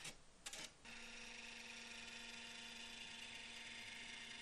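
Canon LiDE flatbed scanner starting a scan: a couple of short clicks as it warms up, then from about a second in a steady, faint motor whir with a low hum as the scan head moves along the page.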